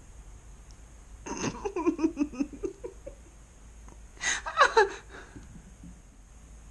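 A woman laughing in two bouts: one starting about a second in and lasting nearly two seconds, and a shorter, louder one about four seconds in.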